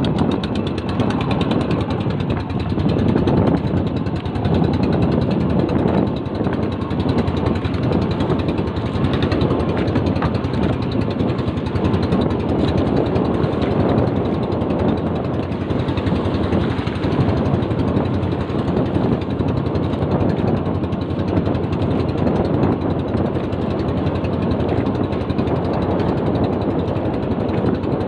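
Small fishing boat's engine running steadily at sea, a dense, rapid, even pulse.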